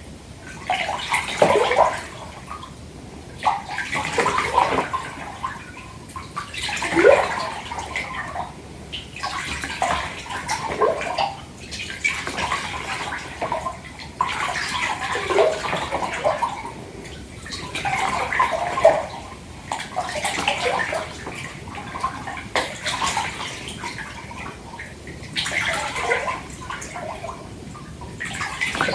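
Bath water sloshing in a filled bathtub, in surges every two to three seconds.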